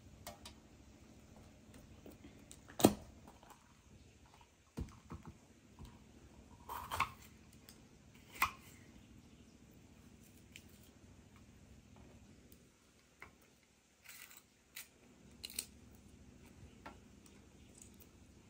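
Knife work on bell peppers and tomatoes: about a dozen irregular sharp knocks and clicks of a knife cutting on a wooden board and cut pieces set down on a metal baking tray. The loudest knock comes about three seconds in.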